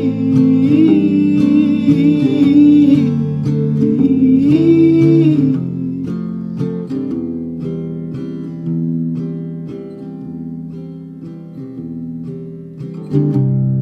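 Background music: a soft folk song on acoustic guitar, with a sung vocal line over the first five seconds or so, then quieter guitar alone.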